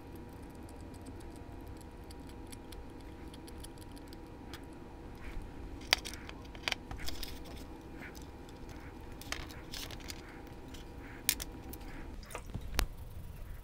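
Small plastic and metal parts of a model locomotive's drive truck clicking and clinking as they are pried apart with pliers and handled, with a handful of sharp ticks in the second half. A steady low hum sits underneath and stops near the end.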